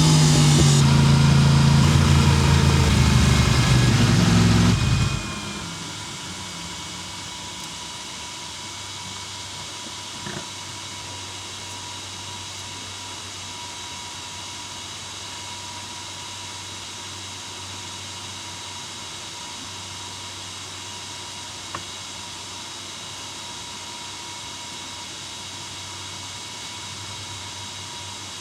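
Motorcycle engine winding down, its pitch falling, until it cuts off about five seconds in. After that comes a steady, much quieter hiss with a faint hum and two small clicks.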